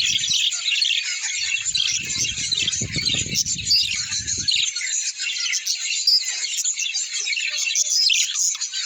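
A flock of small birds chirping and twittering together in a dense, continuous chorus of overlapping high calls. A low rumble sits underneath for a couple of seconds around the middle.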